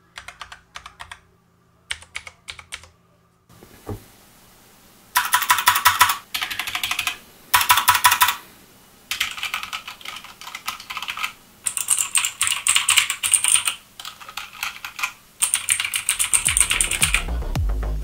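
Fast typing on a retro typewriter-style mechanical keyboard with Outemu red linear switches: dense bursts of keystrokes with short pauses between, after a few scattered key clicks in the first seconds. Electronic music with a deep bass comes in about two seconds before the end.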